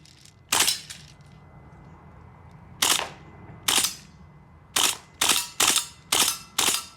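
HPA-powered MWS airsoft rifle fired in single shots, about eight, each a sharp crack with a short tail. They come slowly at first and faster in the second half.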